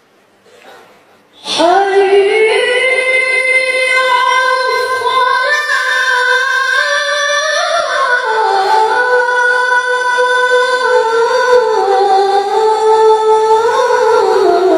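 A boy's high, unbroken voice chanting the adhan (Islamic call to prayer) into a microphone. It comes in about a second and a half in and carries on in long held, ornamented phrases that slide slowly up and down in pitch.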